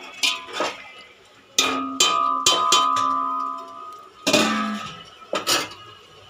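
Metal clanking against a large aluminium cooking pot: a spoon knocking on the pot, then a steel bowl set on top as a lid. Several sharp strikes, each leaving a ringing tone, the longest ringing from a strike about one and a half seconds in.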